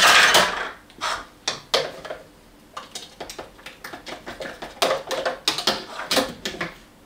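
Kitchen items being handled: a loud clatter at the start, then a run of irregular knocks and clicks, like dishes, jars and utensils being set down and moved about.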